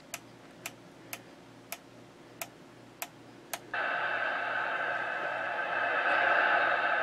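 President Johnny III USA CB radio's channel selector knob clicking through seven channel steps, about two clicks a second. About three and a half seconds in, on channel 14, a steady received signal comes from the radio's speaker and carries on.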